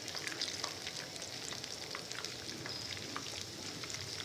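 Gram-flour-battered fish pieces frying in hot oil in a non-stick pan: a steady sizzle full of small crackling pops.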